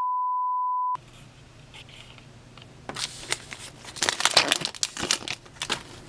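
A steady high beep that cuts off about a second in. From about three seconds in come bursts of crinkling from a trading-card pack's wrapper and cards being handled.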